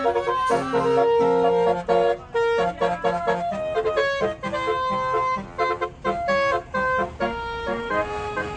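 Tour bus's basuri musical horn playing a fast melody of short note blasts with a few longer held notes.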